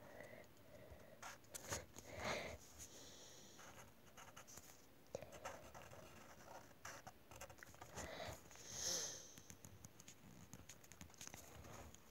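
Faint, scattered scratching and soft tapping of a black marker tip on paper while colouring, with a few soft rustles from the phone being handled.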